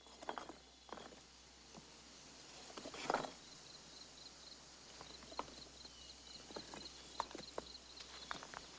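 Loose stones of a dry-stone wall knocking and scraping against each other as they are shifted by hand: a scattering of separate clacks, the loudest about three seconds in.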